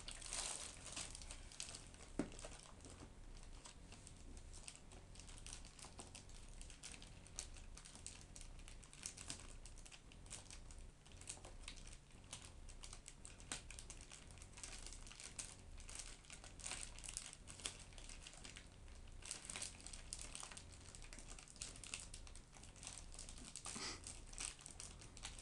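Packaging being handled: faint, irregular crinkling and rustling, with a few sharper crackles now and then.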